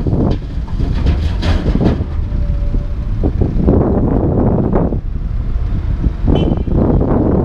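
Heavy diesel rumble of the Komatsu PC220 LC excavator working beside an International single-axle dump truck, with repeated clattering bangs as broken sidewalk concrete is loaded into the truck's steel dump box. A brief high squeal about six seconds in.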